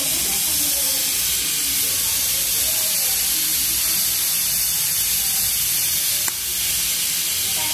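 Pressure cooker on a wood-fired stove hissing steadily as steam escapes from its valve, a sign that it is up to pressure. The hiss briefly drops about six seconds in.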